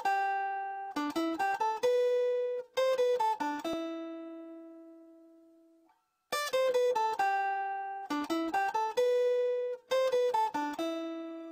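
Instrumental song intro: a plucked-string melody of quick notes. Each phrase ends on a held note that slowly fades, and the phrase repeats, with a brief silence midway.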